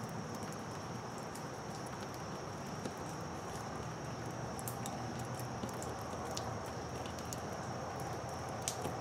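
Steady high-pitched insect trill in the background, with a few faint light clicks from hands fitting a plastic RV tank fill cover into the wall.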